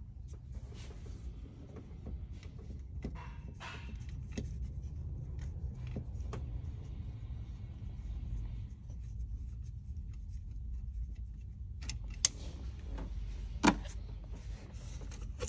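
A wrench and hands working a bolt in a car's engine bay: scattered light metallic clicks and rubbing over a low steady rumble, with two sharper clicks near the end.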